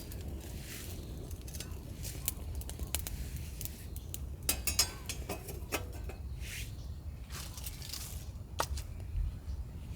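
Scattered small clicks, taps and scrapes of cookware and utensils being handled, with a denser run of clicks about halfway through and a few brief scraping swishes, over a steady low rumble.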